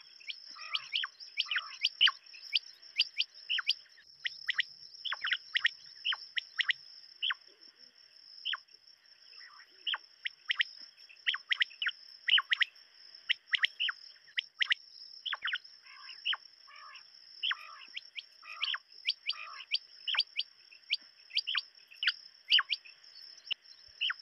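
Common quails calling: many short, sharp notes in quick irregular runs, over a steady high-pitched hiss.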